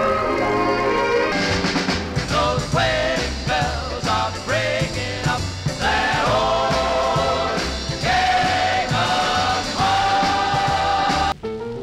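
A song with singing and a band, played from a record on a BSR record changer through its ceramic cartridge and a home-built impedance matching circuit. The music cuts off suddenly near the end.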